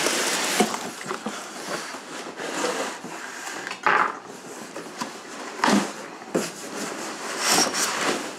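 Cardboard boxes scraping and rustling against each other as a long inner box is slid out of an outer shipping box, with a few short knocks, the loudest about four seconds in.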